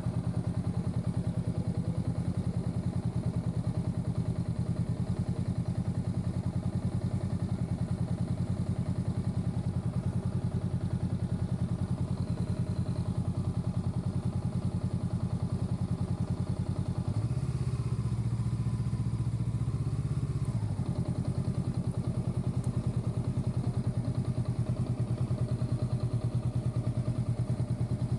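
Honda Rebel 500's parallel-twin engine idling with an even pulse, its note turning deeper and fuller for about three seconds a little past the middle before settling back.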